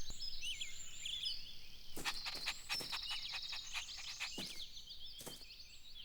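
Outdoor ambience of birds chirping, with many short high calls that bend up and down, a rapid trill about two to three seconds in, and a few sharp clicks scattered through.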